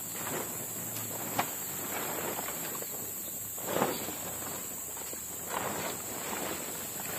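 Forest insects keep up a steady high-pitched drone. Over it come scattered footsteps and rustling, the loudest about four seconds in.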